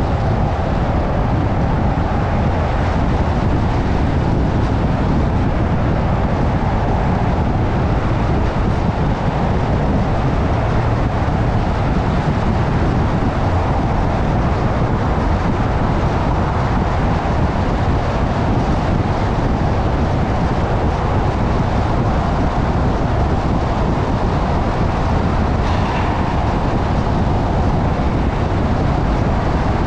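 Steady road and tyre noise of a car driving at speed, with the rumble of its engine, unbroken throughout.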